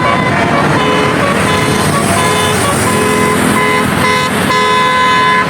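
A bus's 'telolet' musical horn playing a quick tune of short notes that step from pitch to pitch, over the noise of road vehicles.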